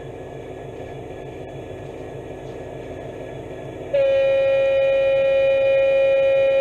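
Sound decoder of an OO gauge model diesel locomotive, played through its on-board speaker. A steady low engine idle is heard first, then about four seconds in a single long horn note sounds as the train is about to depart.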